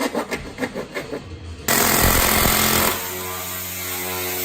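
A car engine being cranked by its starter with a rapid, even chugging. Nearly two seconds in it catches with a sudden loud burst of revs, then settles to a steady idle about a second later.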